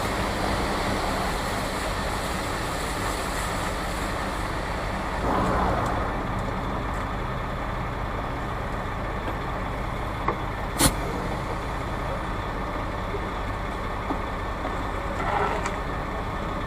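Concrete mixer truck's diesel engine idling steadily, with two brief swells of rushing noise and a single sharp click about eleven seconds in.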